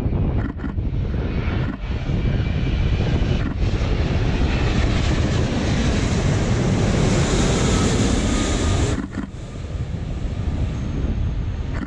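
Jet airliner passing low overhead: a loud engine roar builds over several seconds, with a faint whine at its peak, then falls away sharply near the end.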